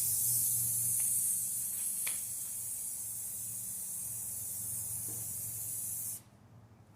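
Aerosol rattle can of rust-inhibiting primer spraying with a steady hiss, easing slightly partway through and then cutting off abruptly about six seconds in.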